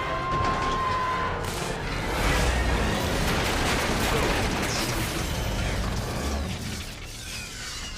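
Dense film sound mix of rumbling, mechanical noise and booms under a music score, with a steady high tone for about the first second. It grows somewhat quieter near the end.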